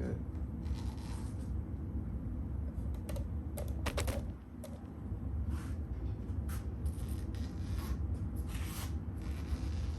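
Excess door-screen mesh being trimmed off with a blade: a scattering of short, sharp snips and scrapes, bunched about three to four seconds in, over a steady low hum.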